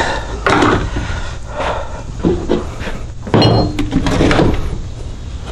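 Wood knocking and scraping as a 2x4 cart frame is shifted and turned on a plywood workbench, in several separate bumps, the loudest about three and a half seconds in, over a low steady hum.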